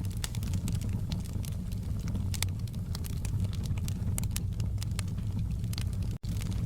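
Fireplace fire crackling: a steady low rumble with irregular sharp pops and snaps. A brief break in the sound comes about six seconds in.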